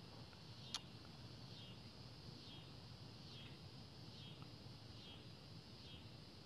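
Near silence: faint outdoor ambience with a high chirp repeating a little more often than once a second, and a single faint click just under a second in.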